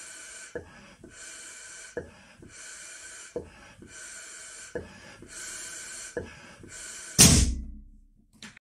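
A large 16-inch Unique latex balloon being blown up by mouth, with a long breath pushed into it about every second and a half and a short click between breaths. About seven seconds in the overinflated balloon bursts with a loud bang, the loudest sound here.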